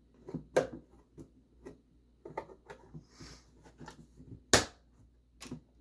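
Pieces of a paper organizer being handled and pressed together: scattered clicks and knocks, with a loud sharp snap about four and a half seconds in and a brief rustle near the middle.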